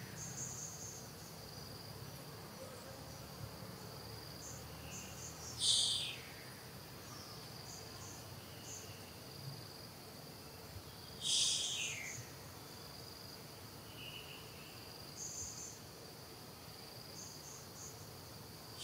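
Insects drone steadily at a high pitch, with small scattered chirps. A louder high call that falls in pitch comes three times, about every five and a half seconds.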